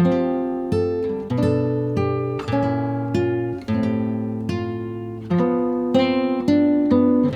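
Background music: acoustic guitar picking notes and chords, a new note or chord about every half to one second, each ringing and fading.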